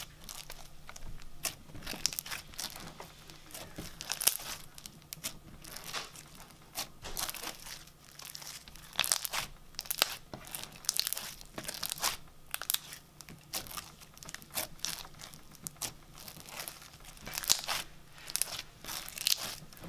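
Hands pressing, poking and pulling a thick, glitter-flecked slime, giving irregular crackling and tearing pops in clusters.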